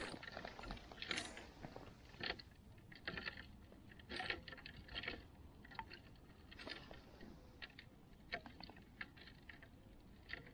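Faint, scattered clicks and crunchy rustles at irregular intervals: handling noise from an ice angler's clothing and gear as he jigs a short ice rod over the hole.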